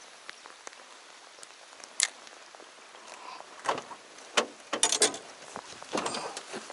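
Light rain pattering, with a few sharp ticks and one click about two seconds in. From about halfway there is a run of irregular clattering knocks and rattles of gear being handled in a small fishing boat.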